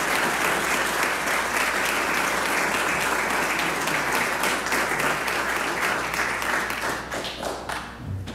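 Applause from a chamber of legislators clapping, steady and dense at first, then thinning to scattered claps and dying away near the end.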